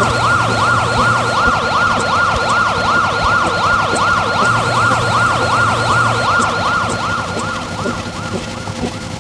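Siren sound effect in a fast yelp, its pitch sweeping up and down about three times a second, fading out near the end.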